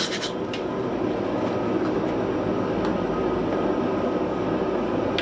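Gas forge burner running with a steady rushing roar, with a couple of light clicks near the start.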